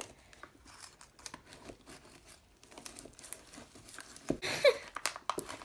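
Frozen Capri Sun foil juice pouch crinkling and tearing as it is cut and pried open with a knife: a string of short rustles and crackles, busiest and loudest about four seconds in.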